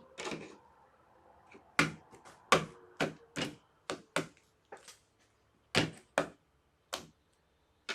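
Hard plastic toy parts and packaging being handled, giving about a dozen irregular sharp clicks and knocks.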